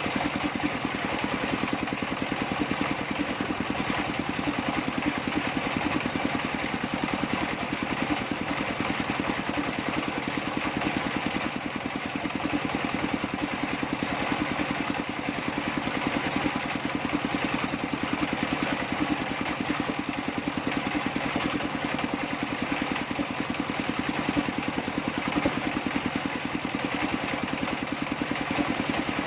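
Engine driving a sawmill's circular saw table, running steadily with a fast, even pulse.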